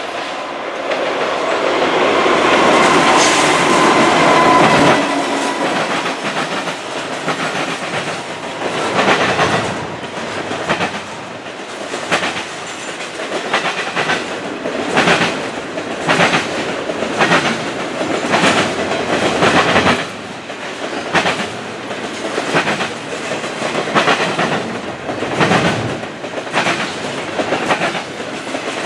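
A CN double-stack intermodal freight train passing close by, its wheels running over rail joints in a steady clickety-clack. The first five seconds are louder and carry a held high tone.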